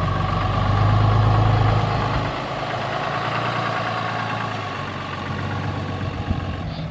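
Engine running steadily, a low hum with a faint steady whine over it, growing a little louder about a second in and easing off after two seconds.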